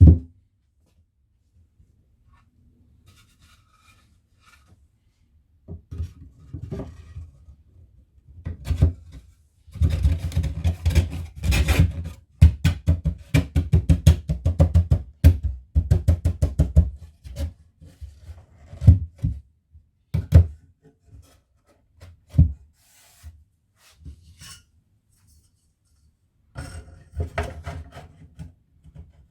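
Cedar beehive super box parts being knocked together: groups of sharp knocks on wood, with a dense run of quick knocks in the middle and scattered single knocks before and after.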